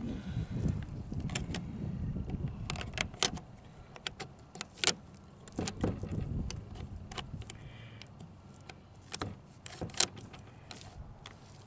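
Irregular metal clicks and clacks of Mossberg 500 pump shotgun parts being handled and fitted together during reassembly.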